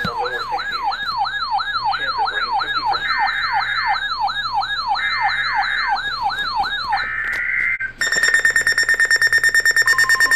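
Electronic alert siren sweeping up and down about three times a second, with a higher beep cutting in now and then. At about eight seconds it switches to a fast pulsing buzz-like alert tone, about four pulses a second, and a lower tone joins shortly before the end.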